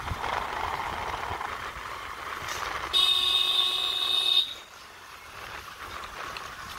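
Wind and road noise while riding a motorcycle, then one steady horn beep about a second and a half long, starting about three seconds in; the horn is the loudest sound.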